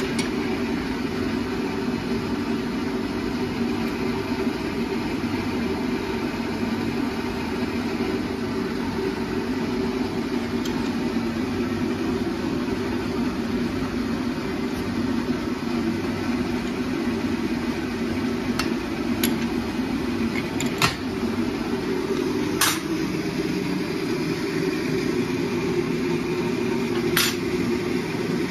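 A steady low workshop roar with no change. A handful of sharp metallic clinks come in the second half as steel rod is worked in a hand-operated bench bending machine and handled on a steel bench.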